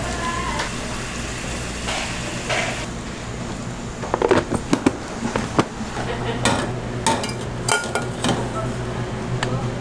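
Kitchen handling sounds: filling scraped from a bowl into a plastic storage box, then a quick run of sharp clicks about four seconds in as the box's snap-lock lid is pressed on and latched. Metal kettles then clunk and clatter on a stainless steel counter, over a steady low hum.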